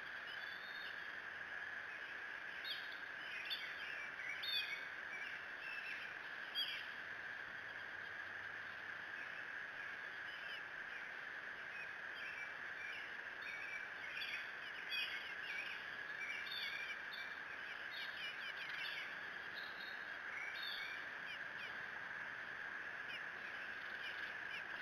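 Wild birds chirping and calling in the woods around the nest, many short high calls, busiest in the first seven seconds and again around the middle, over a steady high hum.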